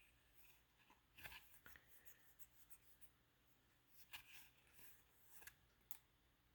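Near silence with faint rustling and small clicks of Magic: The Gathering trading cards being handled one after another.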